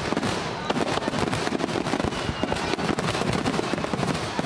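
Fireworks display: many aerial shells bursting together in rapid, overlapping bangs and crackles, with no break.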